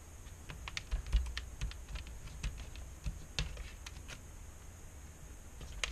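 Light, irregular clicking and tapping from hands pressing tape and LED wires onto an LCD panel's sheet-metal back frame, thickest in the first few seconds.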